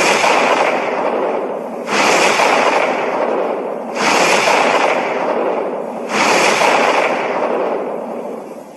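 Monster sound effect: four harsh, noisy blasts about two seconds apart, each starting abruptly and trailing off, with no clear pitch.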